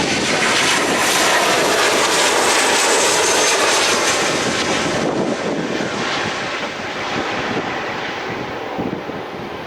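Airliner's engines passing close by, a loud rushing noise with a faint sliding whine, loudest in the first few seconds and then slowly fading.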